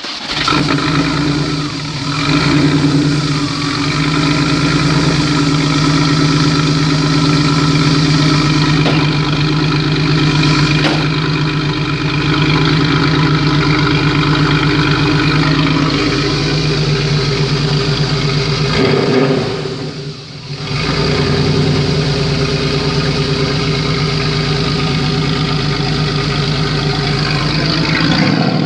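Porsche 911 flat-six engine running at a steady idle just after starting, with a brief change and dip in its sound about twenty seconds in before it settles back to idle.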